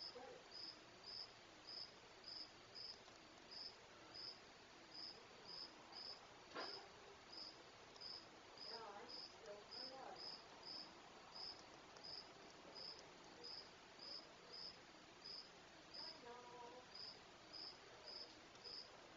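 Night insects, crickets by the sound of it, chirping faintly and evenly, about two high chirps a second, with a single faint click about six and a half seconds in.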